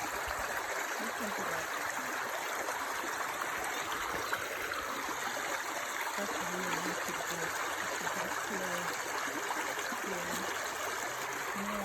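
Shallow stream running over small rocks, a steady rush of water.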